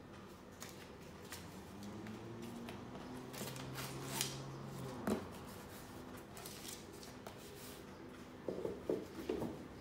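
Paper and cardboard rustling and crinkling as a gift box and the paper inside it are handled, with a few sharp clicks and a burst of louder crinkles near the end.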